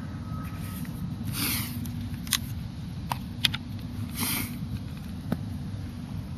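Steady low rumble with two brief rustles in dry leaves and pine needles, about a second and a half in and again past four seconds, and a few sharp snapping clicks in between, as a small electric RC truck crawls over the leaf litter.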